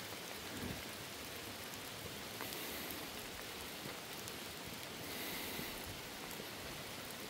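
Rain falling steadily, an even hiss of drops.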